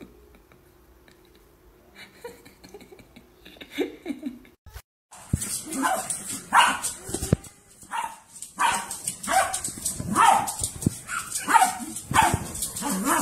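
A small dog barking over and over, about one bark a second, starting about five seconds in; before that, only a faint steady hum.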